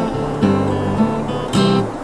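Background music: acoustic guitar strummed in chords that change every half second or so, with a hard strum about one and a half seconds in.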